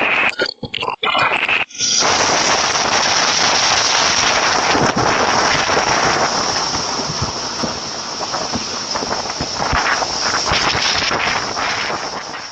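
Storm wind blowing hard on the microphone during a tornado: a dense, loud hiss full of scattered crackles and pops, like rain or debris striking. It comes in abruptly about two seconds in, after a few short choppy fragments.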